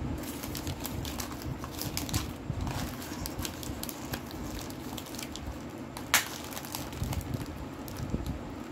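Gold foil wafer wrapper crinkling as it is handled, with scattered light crackles and one sharper crackle about six seconds in.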